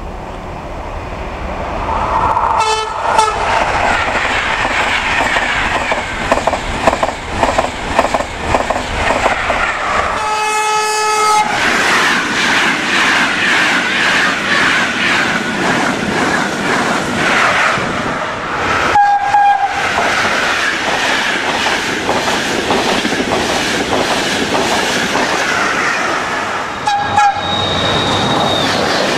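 EuroStarCity (Frecciabianca) passenger trains hauled by electric locomotives passing through a station at speed, one after another: a steady rush of wheels and air with fast rhythmic clatter over the rail joints. Short horn blasts sound four times, the longest about ten seconds in.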